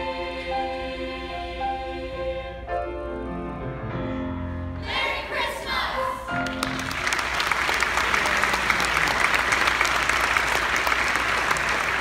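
A mixed choir singing the closing bars of a song with held notes, then audience applause starting about seven seconds in and growing louder.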